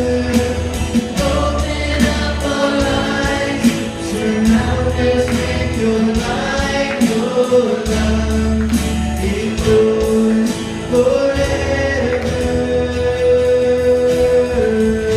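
Live worship band playing a song to its close, with voices singing over a steady drum beat and held bass and keyboard-like chords.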